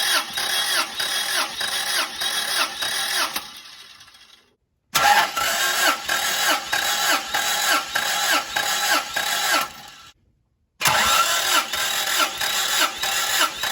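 An old Toyota Corolla engine being cranked over by its starter for a compression test, turning without firing: an even, rhythmic chugging of about three pulses a second. It comes in three separate cranking runs, the first two winding down as the starter stops.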